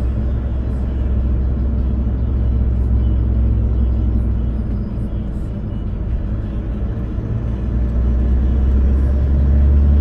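Car interior noise while driving slowly on an unpaved dirt street: a steady low rumble of engine and tyres heard inside the cabin.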